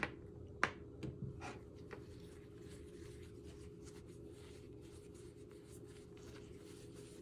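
A few light clicks and taps in the first two seconds, then a faint steady rubbing as a microfiber cloth wipes over a small protective lens to clean it.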